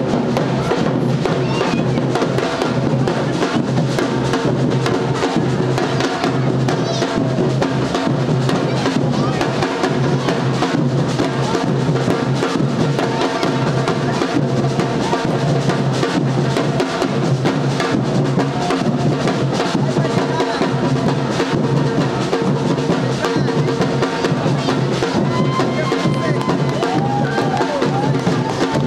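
Live drum ensemble playing a dense, driving rhythm on large shoulder-slung bass drums and other drums.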